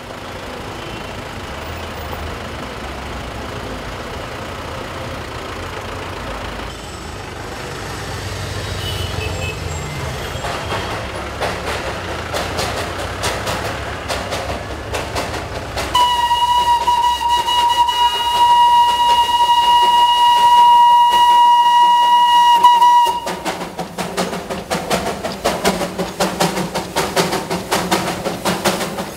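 Darjeeling Himalayan Railway steam locomotive pulling away, its exhaust chuffing in a quickening rhythm. About halfway through comes one long steady whistle blast lasting about seven seconds, the loudest sound here. The chuffing goes on after it.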